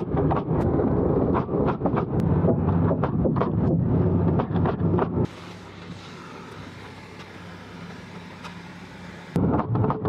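Pneumatic framing nailer driving nails into wooden wall studs in a rapid string of sharp shots, several a second, over a steady low hum. After about five seconds the shots stop and only the quieter hum is left. The nailing starts again shortly before the end.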